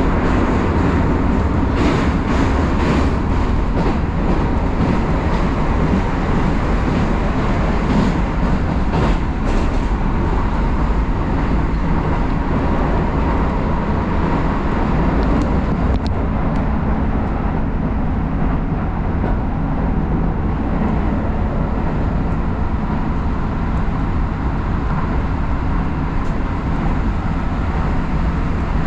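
Keisei Line commuter train running along the track, heard from inside the carriage: a steady rumble with a few sharp clicks in the first ten seconds, the higher hiss easing a little past the halfway point.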